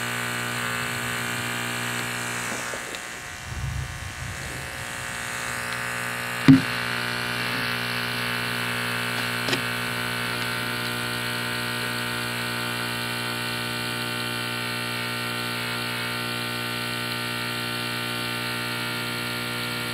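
A tweeter wired straight into a 120-volt wall socket, buzzing steadily at mains hum with many overtones. A single sharp knock comes about six and a half seconds in, and a fainter click near ten seconds.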